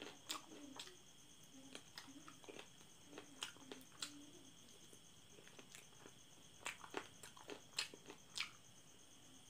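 Close-up mouth sounds of a person eating chicken feet in curry sauce by hand: biting, chewing and sucking at the feet, with scattered sharp wet clicks and smacks.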